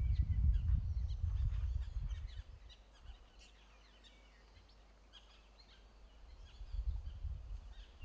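Low, uneven rumbling noise that drops away about two seconds in and comes back near the end, with scattered short, high chirps of birds throughout.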